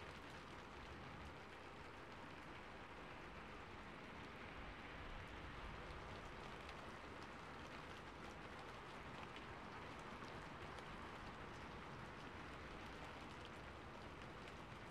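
Calm, steady rain: an even, soft hiss of rainfall with faint scattered drop ticks.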